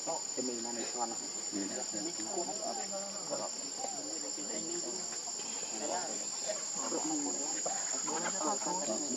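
Steady high-pitched drone of an insect chorus, with a lower wavering chatter running underneath.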